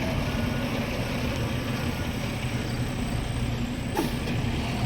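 Steady rumble of road traffic, with heavy vehicles passing on the street.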